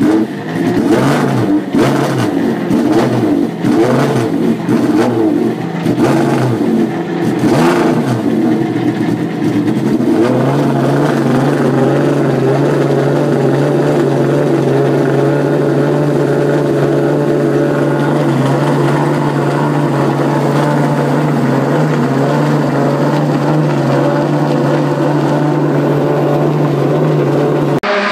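McLaren F1 GTR's BMW V12 racing engine blipped repeatedly for about ten seconds, then settling into a steady idle.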